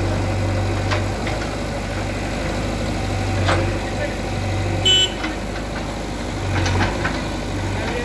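JCB 3DX backhoe loader's diesel engine running steadily while its backhoe works a brick wall, with scattered knocks of bricks and a short, sharp metallic clank about five seconds in.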